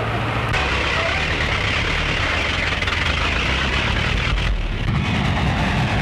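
Open touring car running along a road: steady engine and road noise under the hiss of an old film soundtrack. About four and a half seconds in, the sound changes to a lower, heavier rumble.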